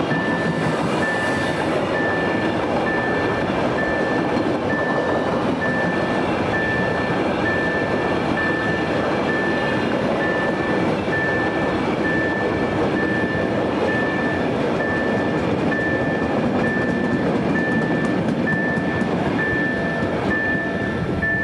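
A train passing with a steady rumble of wheels on rail, while a level crossing warning signal beeps regularly, about one high beep every three-quarters of a second.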